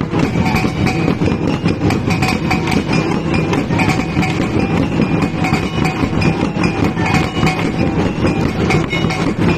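Traditional gong-and-drum ensemble playing a steady, fast, repeating beat: small gongs laid on a bamboo rack ringing over the strokes of a large drum.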